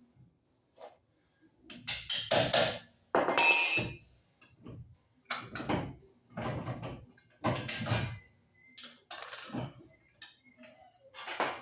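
Metal tools and car parts knocking and clanking, a dozen or so irregular blows, some ringing briefly, as in hammering and handling parts during a front steering knuckle and wheel bearing job.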